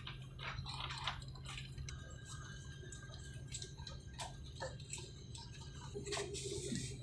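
Steady low airliner cabin hum, with scattered small clicks and taps over it.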